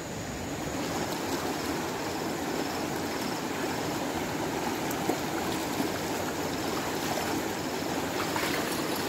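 River water flowing, a steady even rush.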